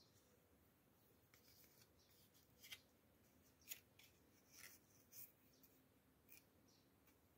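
Faint, crisp rustles and clicks from a hand handling the stiff, wet leaves of a Philodendron 'Prince of Orange', about half a dozen spread across several seconds.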